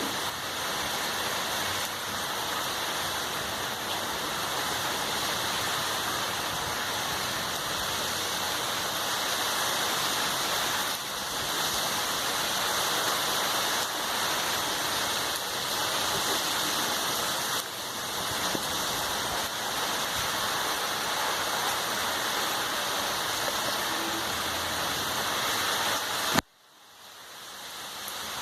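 Heavy rain falling in a steady, dense hiss. About 26 s in there is a sharp click, the rain cuts out suddenly and then fades back in.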